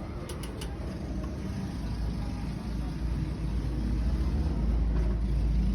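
A motor vehicle's deep rumble that grows louder from about two seconds in, with a few light clicks near the start.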